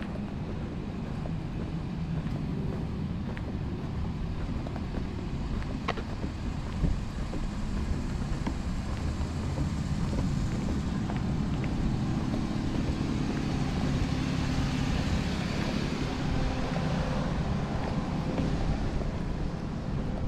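Outdoor street ambience with road traffic: a steady low rumble, and a vehicle's tyre hiss that swells from about halfway through and fades near the end.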